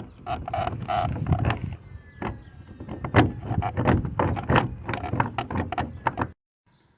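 Irregular clicks, knocks and plastic rattling as the passenger-side mirror of a 2012 Honda Civic is worked loose from the door, with a few short squeaks in the first second or so. The sound cuts off abruptly a little after six seconds in.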